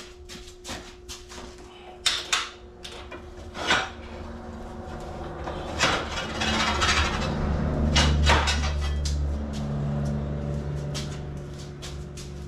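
Steel stock and tools clanking and knocking on a metal workbench as pieces are handled, several sharp separate clanks. A low machine hum starts about four seconds in, grows louder toward the middle and then eases off.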